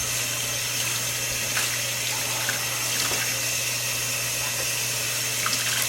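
Tap water running steadily while a puppy is rinsed off in a sink.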